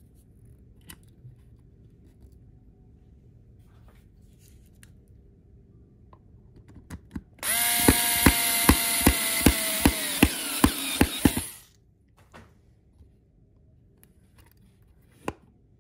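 Power drill driving screws into cabinet panels, running for about four seconds with a steady motor whine and a regular clicking about two or three times a second, then stopping abruptly. Light knocks of handled wood before it and one sharp knock near the end.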